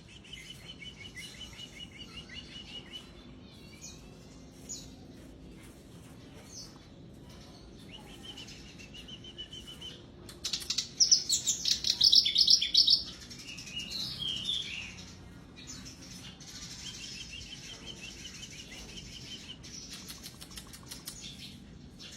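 Kerak basi (reed warbler) singing in rattling, chattering trills repeated phrase after phrase, with a much louder burst of rapid high notes about halfway through.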